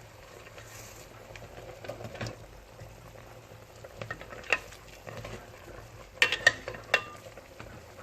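Chicken dry-roasting in a cooking pot, sizzling steadily while it is stirred. A utensil knocks sharply against the pot a few times, with a quick cluster of knocks near the end.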